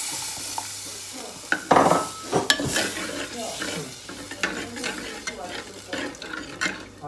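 Tamarind water poured onto hot fried ginger and spices in a clay pot, sizzling with a hiss that dies away over the first second or so. Then a metal spoon stirs and scrapes around the clay pot, with scattered clicks and one louder knock.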